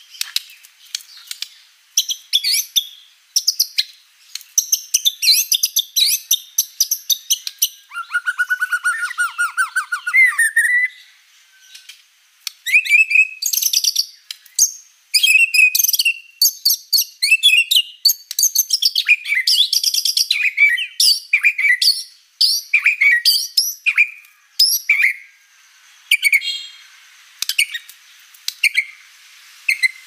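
White-rumped shama singing almost without pause: a long, varied run of clear whistled and chattering phrases, typical of the species' mimicry-rich song. About eight seconds in comes a fast low trill lasting a couple of seconds.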